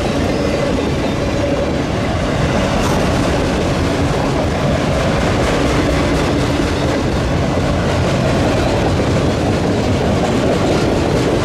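Autorack freight cars rolling past close by: steel wheels running on the rails in a steady, loud noise, with a faint steady tone over it.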